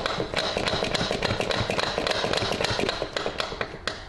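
Quick, irregular metal tapping and clinking, several knocks a second, from working the driveshaft's inner CV joint loose from the gearbox.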